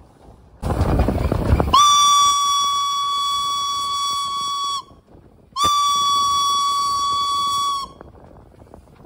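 Steam locomotive B 5112's whistle: a short rush of steam, then two blasts at one steady pitch. The first lasts about three seconds and the second a little over two.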